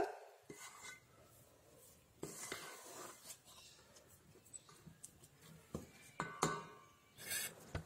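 Faint, scattered scrapes and knocks of a spatula against a stainless steel bowl while stirring thick athirasam dough of rice flour and jaggery syrup, a little louder near the end.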